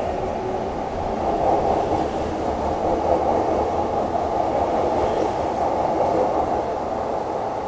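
Coupled E233 and E231 series electric commuter train pulling out of the station and gathering speed, its cars rolling past with a steady running noise of wheels and motors. The noise grows louder about a second in and then holds.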